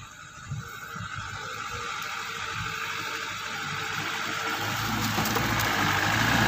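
A loaded sugarcane truck approaching along a muddy track, its engine and tyre noise a rushing sound that grows steadily louder, with a low engine hum coming in about two-thirds of the way through.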